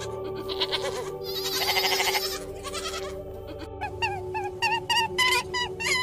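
Goats bleating: short bleats, then a loud, quavering bleat about two seconds in. From about four seconds on, a quick run of short squeaky calls, each dropping in pitch, comes two or three times a second.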